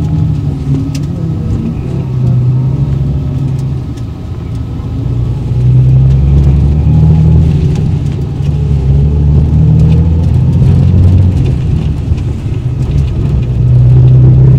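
Bus engine running with a low steady drone under road noise, heard from inside the bus cabin as it drives. The sound eases about four seconds in and picks up again about two seconds later.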